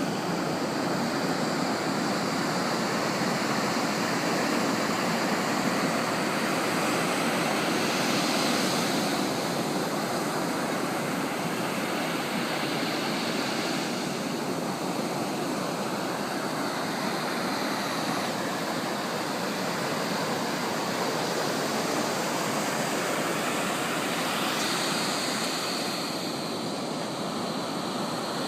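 Tractor-drawn hay baler running, heard as a steady rushing noise with no clear engine note or distinct knocks.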